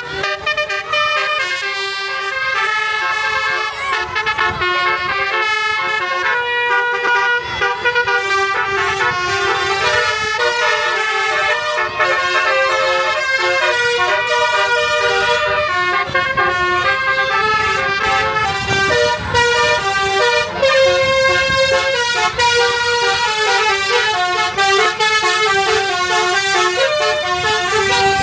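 Telolet horns, multi-tone musical air horns fitted to buses and cars, sounding in quick, ever-changing melodic runs of notes, over a low rumble of vehicle noise.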